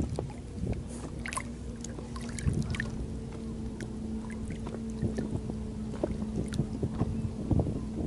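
Tsurinoya 2000 spinning reel cranked at a slow, steady pace to retrieve a lure, giving a steady low hum with small clicks of handling and water lapping against an inflatable boat's hull.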